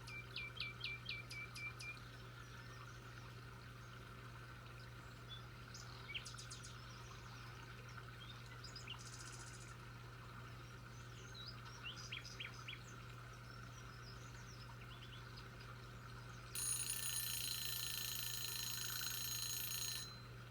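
Birds chirping: a quick run of about six chirps at the start, then scattered calls. Near the end a louder, steady, high-pitched buzz lasts about three and a half seconds and cuts off suddenly, over a low steady hum.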